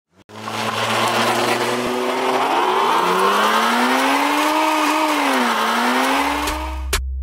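Engine-revving sound effect laid on the soundtrack: a held, noisy engine-like drone whose pitch slowly climbs, dips briefly and comes back up. A deep bass tone comes in near the end as a hip-hop track starts.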